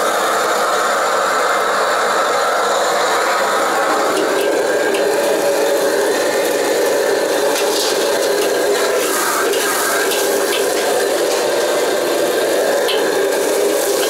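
Meat and vegetables sizzling in a steel wok over a gas wok burner, a loud steady noise, with a metal wok ladle scraping and clinking against the wok as the food is stirred and tossed.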